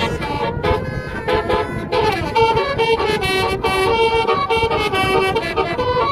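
Bus's basuri 'telolet' multi-tone air horn playing a tune of stepped notes that change every fraction of a second, over a steady low rumble.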